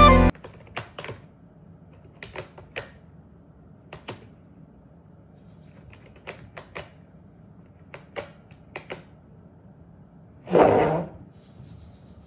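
A kitten's claws and paws tapping and clicking on a corrugated-cardboard scratcher: irregular short clicks, singly and in quick pairs or threes. Near the end comes one short, louder sound.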